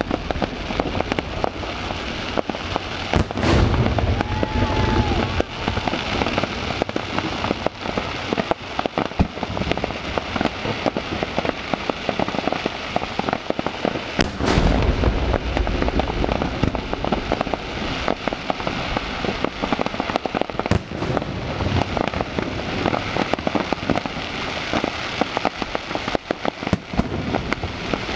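Fireworks display: shells and low-level effects crackling and popping continuously, with two heavy booming shell bursts, about three seconds in and about fourteen seconds in.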